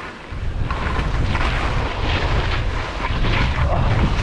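Wind buffeting the microphone in a heavy, steady rumble while skiing fast down a steep snow couloir, with the skis scraping and hissing through spring snow in a surge about every second as each turn is made.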